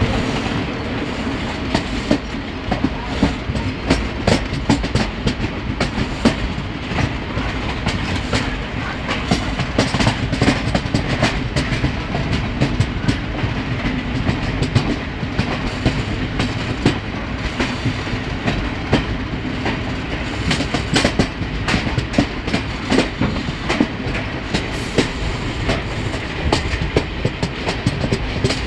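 Passenger train running, heard from on board: a steady rumble of the carriage with frequent sharp clicks and knocks from the wheels over the rail joints.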